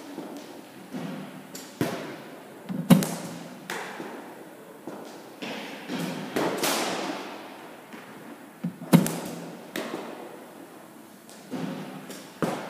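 A series of sharp knocks and thuds every second or few seconds as cricket balls bounce and are taken in a wicketkeeper's gloves, each ringing on briefly in a large indoor hall. The two loudest hits come about six seconds apart.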